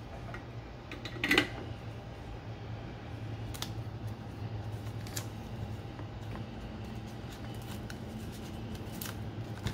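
Hands peeling and handling blue painter's tape and thin wires on a plastic box: scattered light clicks and crinkles, with one sharp knock about a second in. A steady low hum runs underneath.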